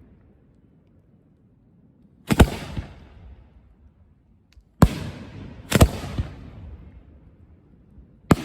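Aerial firework shells bursting: a series of sharp booms starting about two seconds in, spaced a second or two apart, each trailing off in a long fading echo.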